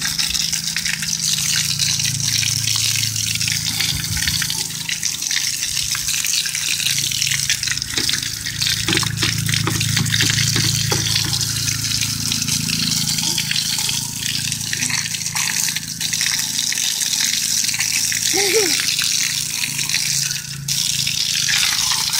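Garden hose spray nozzle jetting a steady stream of water onto a truck's wheel and tire, splashing and spattering onto the wet concrete, to rinse off wheel cleaner and loosened brake dust.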